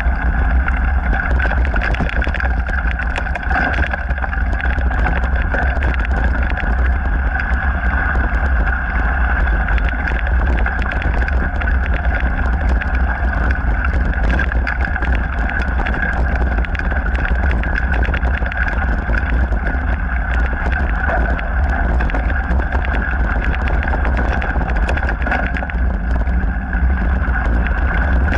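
Mountain bike riding along a dirt trail: a steady rumble of tyre and wind noise on the action camera's microphone, with constant small rattles and clicks from the bike over the bumps.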